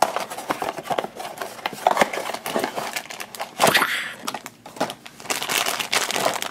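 Packaging crinkling and rustling as a Funko Mystery Minis box is opened and its black foil blind bag is pulled out and squeezed in the hands, with a louder crackle about three and a half seconds in.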